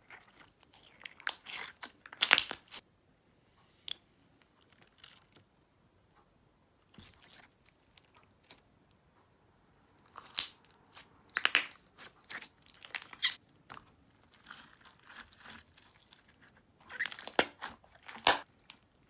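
Clear slime packed with soft cubes being squeezed, twisted and pressed by hand, making crunchy, crackling pops in short clusters with quiet gaps between. The loudest crackles come about two seconds in.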